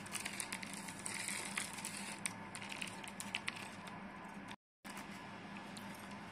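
Small clear plastic jewellery packet crinkling and crackling as fingers handle it, a run of crisp rustles through the first three seconds or so, over a steady low hum. The sound cuts out completely for a moment about two-thirds of the way in.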